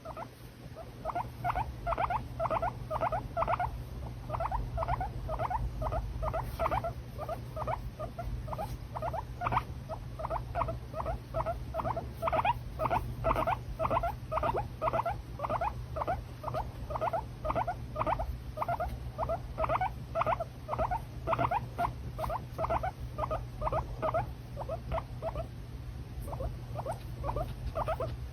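Guinea pig squeaking in a long, rapid series of short calls, about three a second, with brief pauses.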